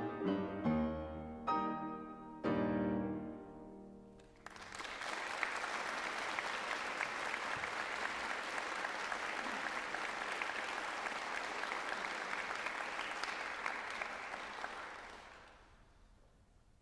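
Grand piano playing the closing chords of a classical piece. The last chord rings out and dies away, then an audience applauds for about ten seconds before the clapping fades out near the end.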